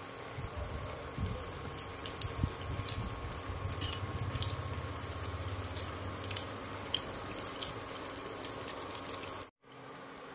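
Oil sizzling and bubbling around rice cakes deep-frying in a pan, with scattered sharp pops and crackles. Near the end it drops out for an instant and comes back quieter and steadier.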